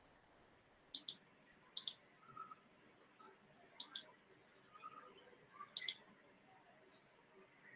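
Computer mouse double-clicking: four pairs of sharp clicks, one to two seconds apart.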